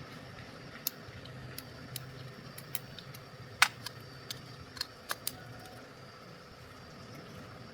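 Scattered sharp clicks and taps of small metal parts or hand tools being handled, about ten in all with the loudest midway, over a low steady hum.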